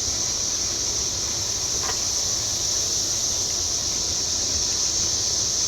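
Steady, high-pitched chirring of insects, with a low background rumble and one faint click about two seconds in.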